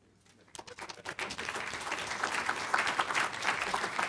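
Audience applauding, starting about half a second in and building within a second to steady clapping.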